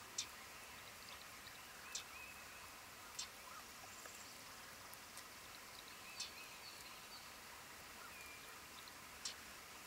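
Male Common Yellowthroat giving single sharp chip calls, five in all, spaced a second to three seconds apart. Faint calls of other birds sound in the background.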